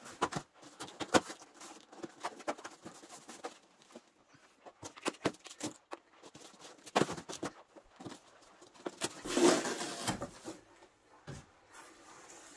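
Packing tape being peeled off a long cardboard box and the cardboard flaps pulled open: scattered crackles, rustles and knocks of tape and cardboard, with a longer tearing rasp about nine seconds in.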